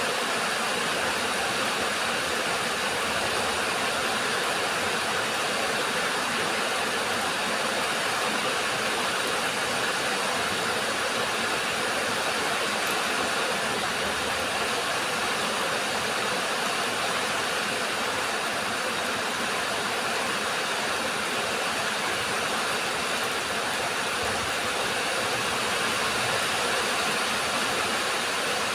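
Steady rain falling, an even hiss that holds at the same level without a break.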